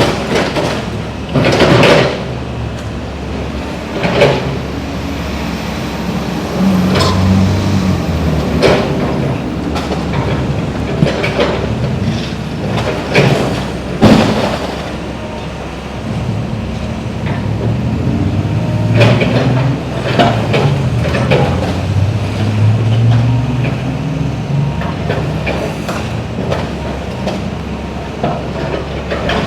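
Demolition work: a steady machine rumble with irregular sharp knocks and bangs, the loudest about two seconds in and about fourteen seconds in.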